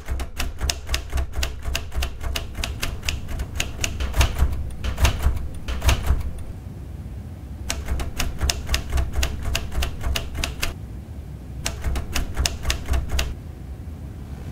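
Mechanical typewriter keys clacking, about four or five strikes a second, in three runs broken by short pauses about six and eleven seconds in, over a low steady hum.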